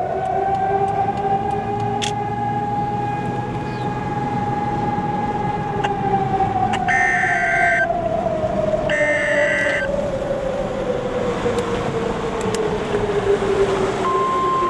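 A civil-defense warning siren, standing in for Cyprus's war alarm, holds a steady high wail and then slowly falls in pitch. Two short shrill electronic bursts cut in midway, and a steady higher alert tone starts near the end.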